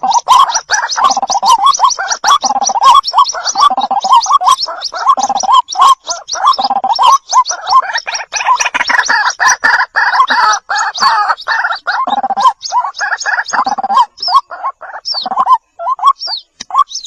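White-breasted waterhen calling: a loud, dense run of rapid, overlapping short calls that thins to separate calls in the last few seconds.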